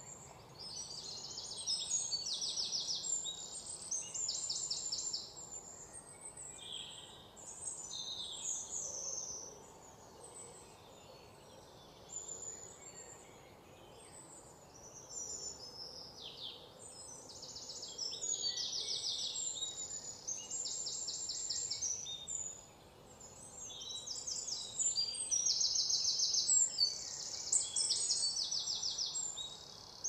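Birds chirping and singing, many high-pitched phrases of fast, rapid trills coming one after another, over a soft steady background hiss.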